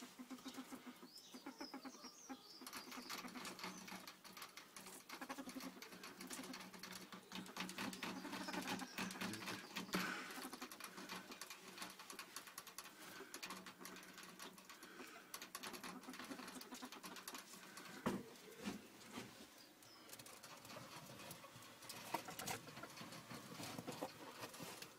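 A ferret scrabbling and rustling about its nest: a faint, rapid patter of small clicks and scratches, with soft low animal sounds here and there and a single sharp knock near the end.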